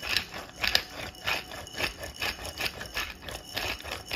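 Pepper mill grinding black pepper onto raw ground chicken, a crunchy grinding stroke about twice a second, stopping suddenly near the end.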